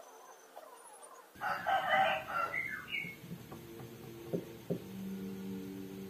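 A rooster crows once in the background, about a second and a half in. Then the LG WD-M8070TD front loader's direct-drive inverter motor hums steadily, with two knocks, as the drum rocks slightly but fails to spin: a fault the repairer finds typical of a faulty motion sensor on the direct-drive motor.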